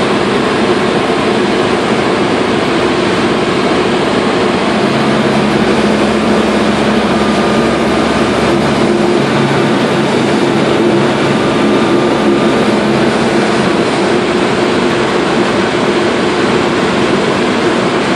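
Single-engine propeller aircraft's engine and propeller running steadily, heard from inside the cockpit with rushing air noise, on the landing approach.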